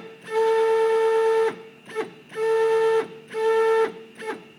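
NEMA 34 stepper motor turning the rotary table through a series of indexing moves: a steady whistling whine that starts and stops, in about five runs from a brief blip to about a second long, with short pauses between.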